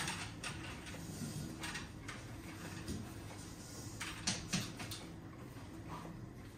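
Room ambience in a dialysis ward: a steady low hum with scattered light clicks and knocks, the loudest a quick pair about four seconds in.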